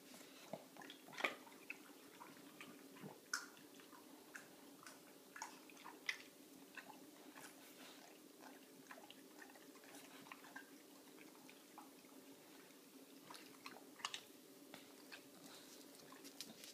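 English bulldog crunching ice cubes in his mouth: irregular sharp crunches and clicks, thickest in the first few seconds and again near the end, sparser in between.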